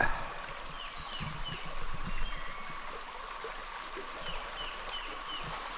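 Creek water running steadily over rocks, with a bird giving short repeated chirps in little groups over it.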